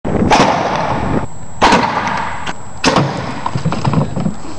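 Combustion spud gun firing on MAPP gas: three loud bangs, each with a short echoing tail, a bit over a second apart.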